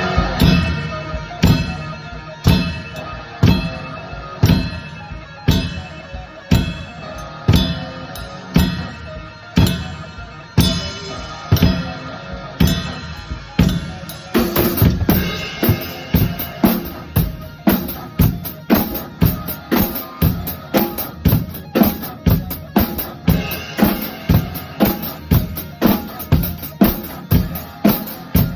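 Heavy rock music led by a drum kit: bass drum and snare hit about once a second under held electric guitar chords. About halfway through the beat doubles to about two hits a second and steady cymbals join.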